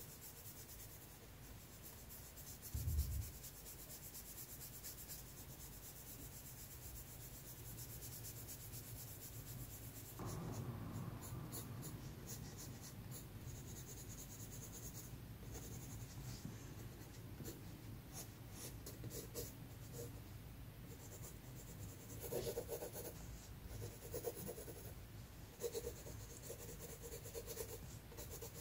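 Pencil drawing on sketchbook paper: soft rubbing and shading, then short scratchy strokes in clusters during the second half. A low thump comes about three seconds in.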